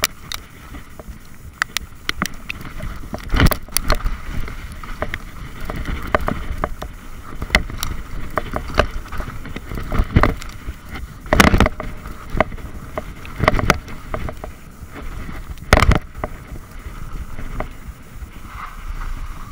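Mountain bike riding down a rough dirt trail: a steady rumble and rattle of the bike over the ground, with wind on the microphone and a series of sharp knocks as it hits bumps and roots, the loudest a few seconds in and near the middle.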